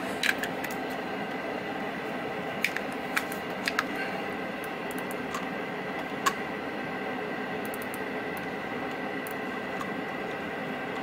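Scattered sharp clicks from a Logitech Anywhere MX mouse being tested after its click micro switches were replaced: the battery being fitted near the start, then the buttons being pressed. A steady electrical hum runs underneath.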